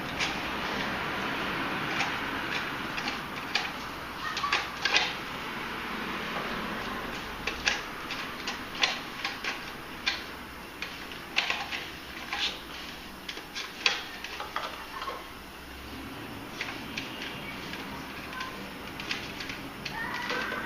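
Irregular sharp clicks and clacks, dozens of them spread unevenly over the stretch, some in quick clusters, over a steady background hiss.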